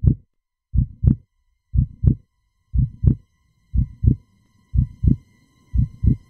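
Heartbeat sound effect: slow lub-dub pairs of low thumps, about one pair a second. A faint steady high tone comes in about halfway through.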